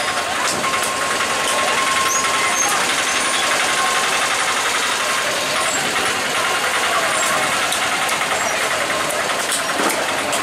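Steady din of engine and traffic noise around a busy fish stall, with a few sharp knocks from cleaver work on a wooden chopping block.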